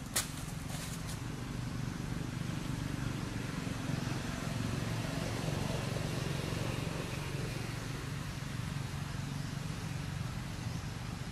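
Low, steady drone of a motor vehicle engine running nearby, swelling a little around the middle and easing off again. A single dry crackle sounds right at the start.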